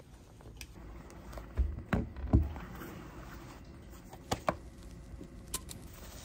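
Scattered light thuds and clicks at a desk with a computer keyboard: three close together about two seconds in, then a few sparser clicks, over quiet room tone.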